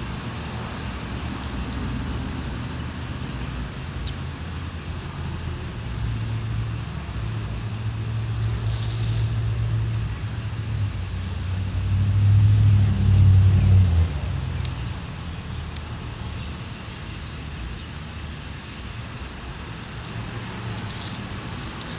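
Low engine rumble of a motor vehicle. It swells to its loudest about twelve seconds in and drops back down about two seconds later.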